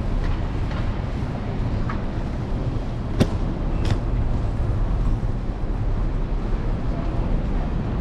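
Steady rumble of wind and road noise from a moving electric scooter riding through city traffic. There is a sharp knock a little after three seconds in and a weaker one near four seconds.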